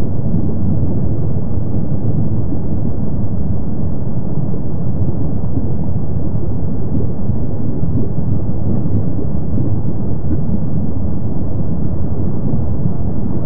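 Steady low rumble of Kīlauea's lava fountains erupting from the lava lake, even and continuous without separate bangs.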